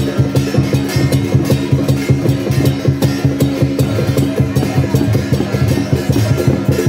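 Music with drums and percussion: a rapid, steady run of strikes over sustained low tones.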